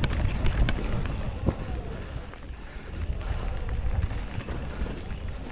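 Mountain bike being ridden down a trail: wind rumbling on the microphone, with irregular knocks and rattles from the bike going over the ground.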